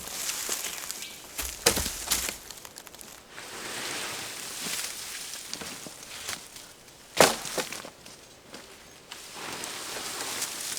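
Wooden poles and sticks of a bushcraft shelter knocking and cracking as it is pulled down, amid rustling of leafy debris. A few sharp knocks, the loudest about seven seconds in.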